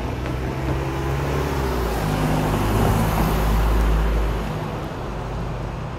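A vehicle passing by: a low rumble with a steady engine or motor hum that builds to its loudest about three to four seconds in, then fades.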